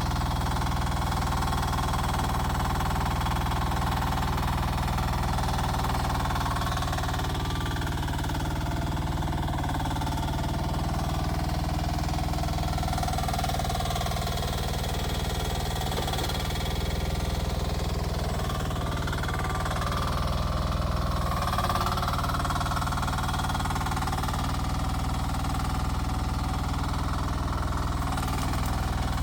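Rippa R10 mini excavator's engine running steadily while it digs, with a higher tone that wavers up and down now and then as the machine works.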